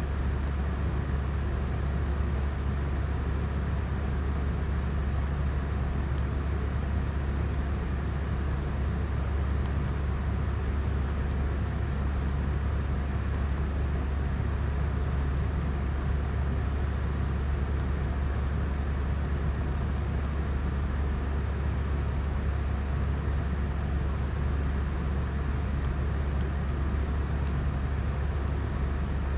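Steady low hum with a constant hiss, unchanging in level, and scattered faint high ticks.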